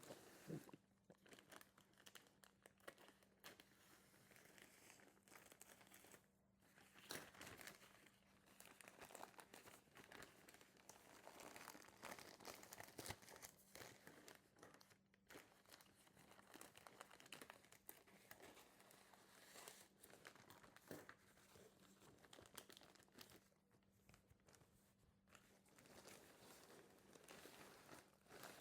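Faint, irregular crinkling and tearing of shipping packaging being opened by hand, on and off with short pauses.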